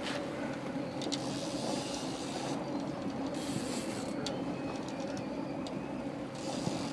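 Steady drone of a fishing boat's engine running at slow speed, with a couple of faint clicks.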